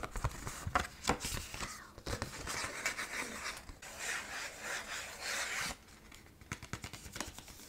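Rubbing and scratching on an object's surface in a run of short strokes with small taps, made as ASMR trigger sounds; quieter near the end.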